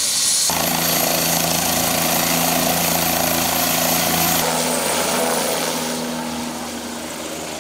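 Helicopter running with its rotor turning: a loud, steady engine hum holding several tones, which changes abruptly twice. From about six seconds in it fades as the helicopter climbs away.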